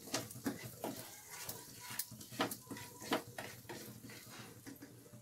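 A spatula scraping and knocking irregularly against a nonstick kadai as spices are stir-fried in hot butter and oil, over a light sizzle.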